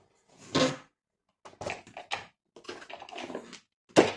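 Handling noises from a vacuum cleaner and its parts being moved about, not the motor running: a knock about half a second in, two runs of clicks and rattles, and a sharp knock near the end.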